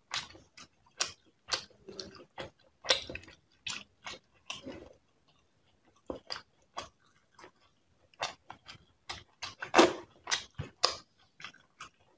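Eating sounds: chewing with wet mouth smacks and clicks, irregular, with a short pause about halfway through.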